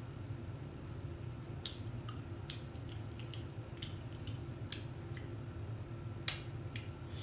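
Eating close to the microphone: scattered short clicks and wet smacks of chewing and utensils, a louder click about six seconds in, over a steady low hum.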